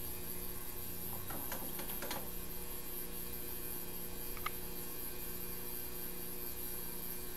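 Steady electrical mains hum with a high faint whine above it. A few faint light scratches come about one and a half to two seconds in, and a single small click a little past halfway.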